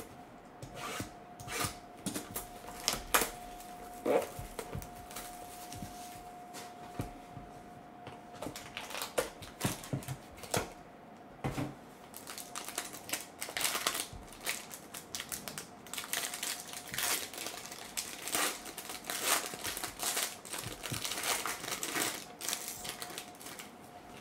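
Hands opening a sealed trading-card box and the foil-wrapped pack inside, with crinkling plastic and foil and many small irregular crackles and taps. The handling grows busier in the second half as the foil pack is torn open.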